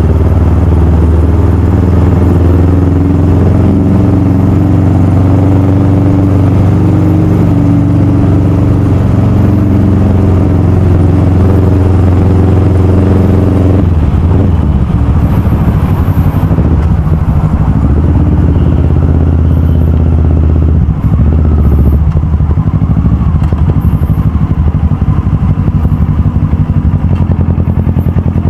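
Motorcycle engine running while riding, heard from on the bike. A steady engine note holds for the first half, then about halfway through it breaks up and turns rougher and less even as the bike slows.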